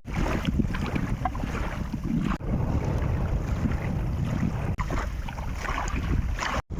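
Swedish-oven log fire burning, with scattered small crackles over a low rumble.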